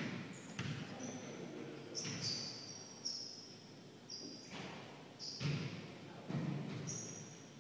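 Basketball game on a hardwood court: sneakers squeak in short, high chirps, and a basketball bounces with sharp knocks several times.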